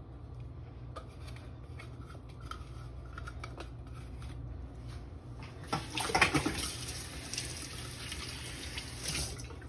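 Chopped boiled eggs being tipped and scraped out of a container into a glass bowl of diced potatoes: soft scrapes and light taps, louder a little past halfway.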